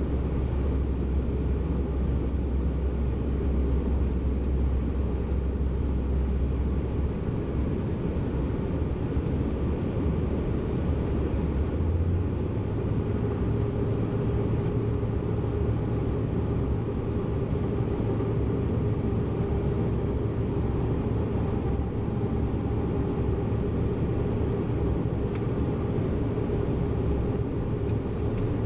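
Steady cabin drone of a Bombardier CRJ900 in flight, the noise of its two rear-mounted turbofan engines and the airflow heard from a window seat. About twelve seconds in, the low hum steps up to a higher pitch and a higher steady tone joins it.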